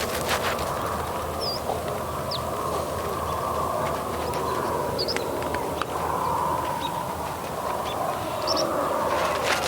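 Farm morning ambience: a steady, wavering background from a sheep flock, with a few short, high bird chirps scattered through it.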